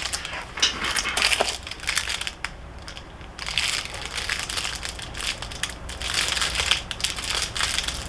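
Helmet box packaging being handled and rummaged through: irregular crinkling and rustling, with a brief lull about halfway through.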